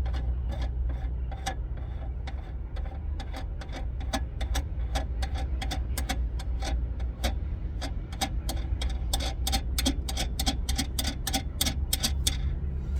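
Ratchet wrench clicking in irregular runs, faster in the second half, as a nut is run onto the tie rod, over a steady low hum.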